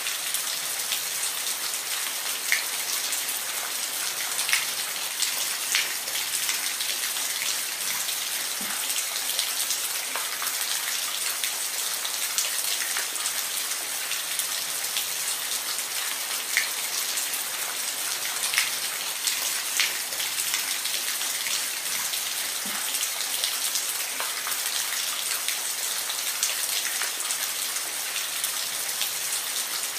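Steady rain falling on a surface, with many individual drops tapping sharply now and then through an even hiss.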